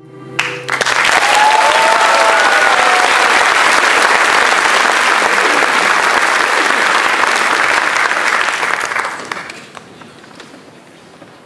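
Audience applause that starts suddenly just under a second in, with a few high cheers near the start, holding steady and then dying away after about nine seconds.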